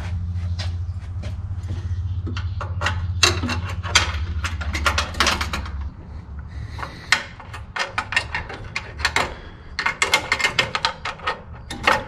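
Scattered clicks and knocks of work on a car, over a steady low hum that stops about halfway through, with a quick run of clicks near the end.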